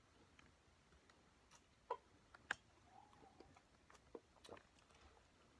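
Near silence broken by a few faint, scattered clicks and taps. The two loudest come about two and two and a half seconds in.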